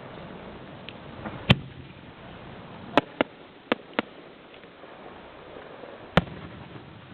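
Fireworks bursting: six sharp bangs at uneven intervals, with two quick pairs in the middle and a last bang near the end, plus a couple of fainter pops early on.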